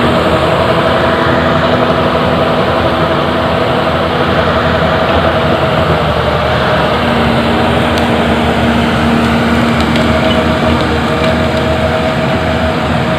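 Caterpillar 320D2 excavator's diesel engine running steadily at working revs, with a steady high tone held over the engine noise.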